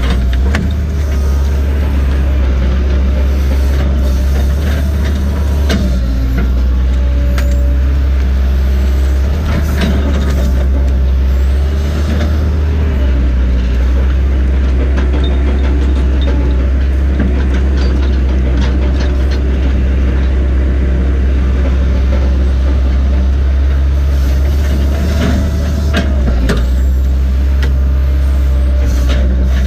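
Diesel engine and hydraulics of a tracked excavator heard from inside its cab, a loud steady low drone that changes pitch a few times as the machine works, with a few sharp knocks now and then.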